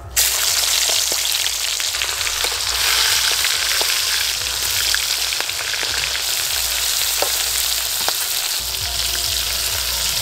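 Giant freshwater prawns (golda chingri) sizzling in hot mustard oil in a metal wok. The steady frying hiss starts suddenly as they go in, with a few sharp pops.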